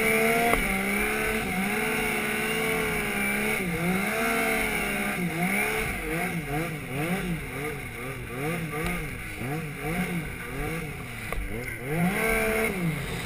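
Stock Yamaha Nytro snowmobile's four-stroke three-cylinder engine running under throttle through deep powder, its revs rising and falling again and again, swinging up and down in quick succession through the middle stretch.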